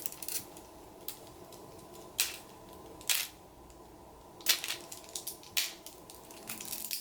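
Plastic action figures knocking and clacking together in an irregular string of sharp clicks and taps, the strongest about two, three and four and a half seconds in.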